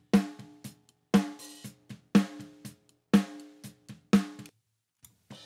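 Recorded snare drum from the top snare microphone, soloed and played back through an EQ boosting around 3 kHz with a light high shelf near 5 kHz. A strong ringing backbeat hit comes about once a second with softer hits between. Playback breaks off for about a second near the end, then starts again.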